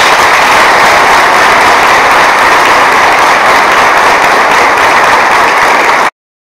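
Audience applauding loudly, a dense, even clapping that cuts off suddenly near the end.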